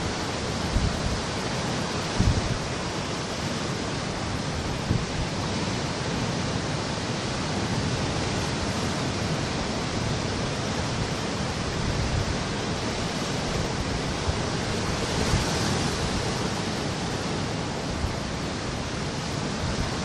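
Sea surf breaking and washing over shore rocks, a steady hiss of foaming water that swells louder about three quarters of the way through. A few brief low thumps come in the first five seconds.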